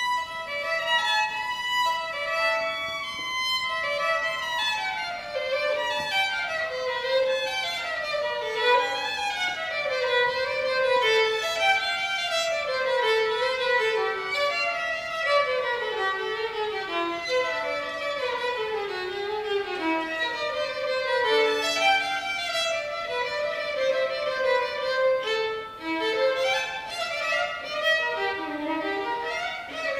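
Solo violin bowed without accompaniment, played as quick runs of notes that step mostly downward in pitch, over and over.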